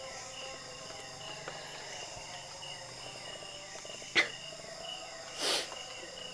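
Night chorus of crickets and other insects, a steady high-pitched trilling. A sharp click comes a little after four seconds in, and a short hiss about a second later.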